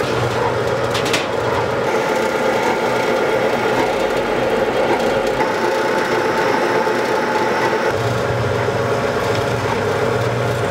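Rice-cake shop machinery running steadily: a continuous loud mechanical hum. A low drone underneath eases off between about four and eight seconds in, then returns.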